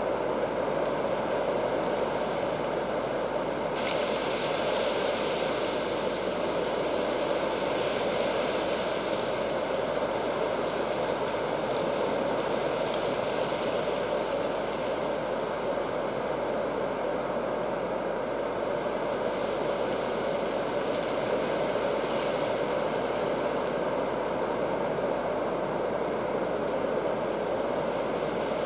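Steady rushing noise of stormy weather, wind and rain, with a brighter hiss that sets in suddenly about four seconds in and swells again later on.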